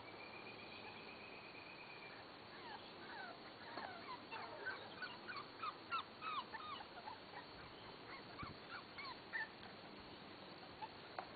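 Faint animal calls: a high steady tone for about the first two seconds, then a quick run of short high squeaks, each falling in pitch, loudest near the middle.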